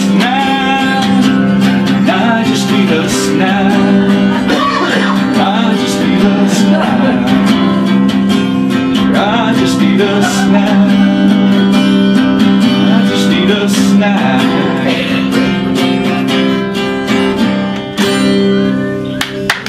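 Live music accompaniment: strummed guitar over a steady held low drone, with a wavering melody line on top.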